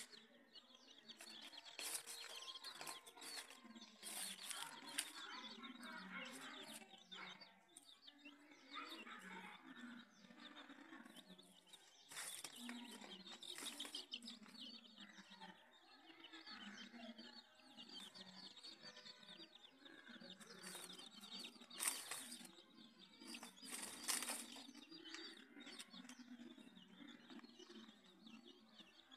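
Domestic chicks peeping continuously as a brood forages with the hen, with a few short, sharp rustling noises breaking in, the loudest about two-thirds of the way through.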